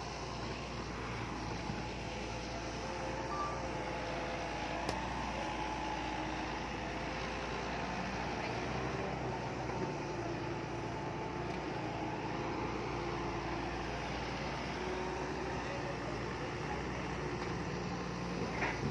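Diesel engines of heavy earthmoving machines running steadily on a worksite, their pitch drifting slowly up and down. A single short high beep sounds about three seconds in.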